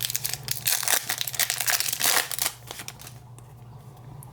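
Wrapper of a 2019 Topps Chrome Update baseball card pack being torn open and crinkled, a rapid run of crackles that dies down about two and a half seconds in.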